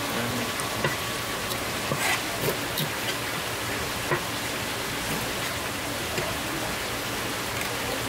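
Steady rain-like rushing hiss with a few light taps and knocks of a fish and a knife being handled on a wet wooden cutting board, the sharpest about four seconds in.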